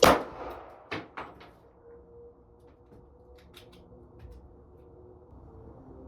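A single pistol shot from a hammer-fired handgun, with a short echo. Three lighter sharp clicks or taps follow about a second later.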